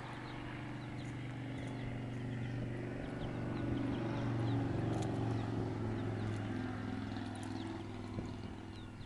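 A motor vehicle's engine drone passing by: a steady low hum that grows louder to a peak about halfway through, then fades. Faint high peeps of chicks are heard over it.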